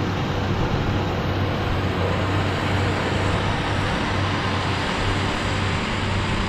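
Tractor diesel engine running steadily, a constant low drone with no change in speed.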